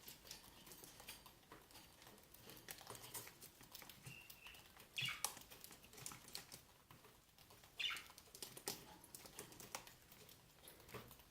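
Cockatiels pecking at food, with many small, quiet beak taps and nibbling clicks. A few short chirps cut in, two of them falling in pitch, about five and eight seconds in.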